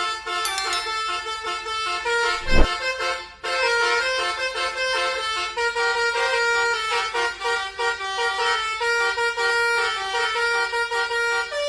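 Telolet bus horn, a multi-tone electric horn, playing a quick melody of stepping notes that repeats. There is a low thump about two and a half seconds in, and a brief break just after.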